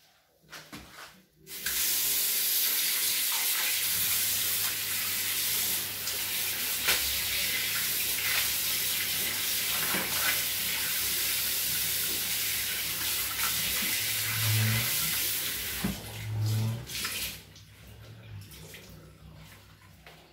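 Kitchen tap running into a sink while something is rinsed under the stream. The water comes on about a second and a half in and shuts off near the end.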